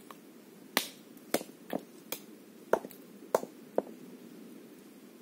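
A stone striking shells against rock: about seven sharp knocks, roughly half a second apart, as the shellfish are cracked open to get at the bait inside.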